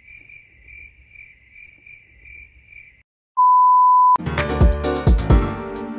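Crickets chirping, a high chirp repeating about three times a second, cutting off about three seconds in. After a short gap, a loud steady test-tone beep like the one that goes with TV colour bars, then music with a heavy drum beat starts.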